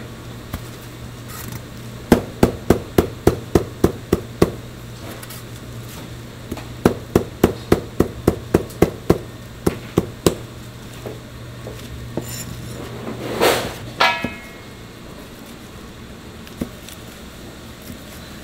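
Cleaver slicing braised pig's trotters (jokbal), the blade knocking on the cutting board about four times a second in two quick runs. A louder swish and a short clatter come near the end of the second third, and a steady low hum stops there.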